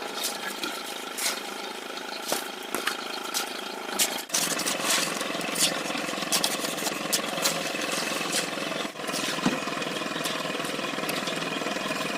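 Electric arc welding on a steel tie beam: a steady machine hum with a sputtering crackle and frequent sharp pops, briefly interrupted twice, about four and nine seconds in.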